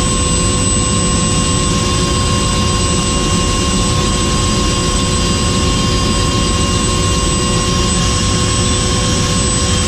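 Helicopter's turbine engine and rotor running steadily: a constant high whine over a loud, dense low rumble.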